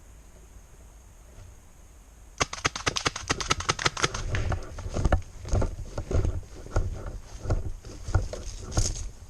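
Quick footsteps and rattling kit of an airsoft player on the move. They start suddenly about two seconds in: a cluster of sharp clicks, then thumps and clicks about twice a second.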